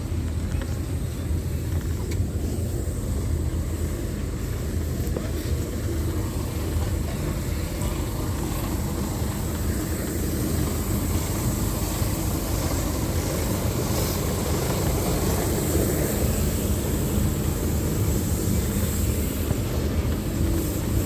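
Racing vehicle engines at a circuit: a steady low rumble that grows slightly louder over the second half.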